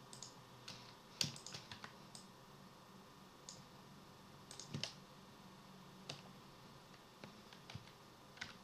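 Faint, scattered clicks of a computer keyboard and mouse, singly and in small clusters with pauses between, over a low steady hum.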